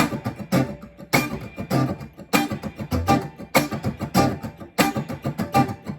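Guitar strummed in a steady run of quick, choppy strokes, with a loud percussive accent about every second and a bit marking the backbeat, exaggerated to play the guitar like a drum.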